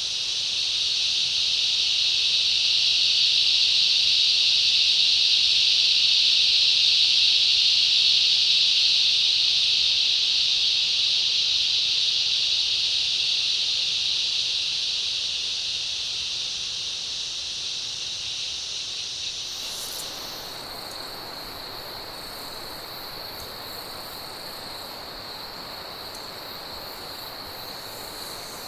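Rainforest insect chorus: a dense, high, buzzing drone that swells over the first several seconds and then slowly fades. About twenty seconds in, it changes to a thin, steady high whine over a broader hiss.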